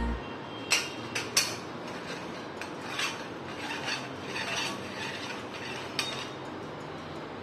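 Brass sev press being handled and assembled: a few sharp metal clinks as its parts knock together in the first second and a half, another about six seconds in, with light scraping between.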